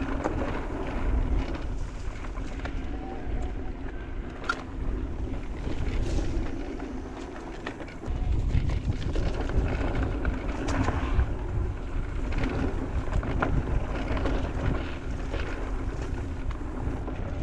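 Wind buffeting the action-camera microphone as an electric mountain bike is ridden fast down a dirt trail, with tyre noise and frequent knocks and rattles from the bike over rough ground.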